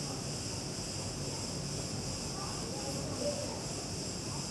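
Steady high-pitched insect chorus, crickets or similar, with faint scattered chirps or distant voices underneath.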